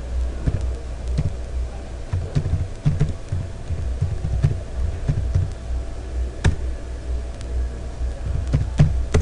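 Typing on a computer keyboard: irregular keystrokes, a quick run of them about two seconds in, then a few single clicks near the end, over a steady low hum.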